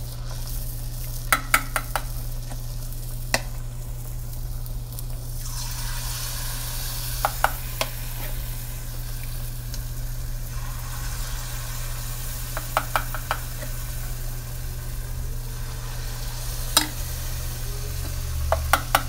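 Dollops of marinade batter frying in hot oil, sizzling steadily over a low hum, with a metal spoon clinking against the bowl and pot rim in short clusters of quick taps several times as the batter is spooned in.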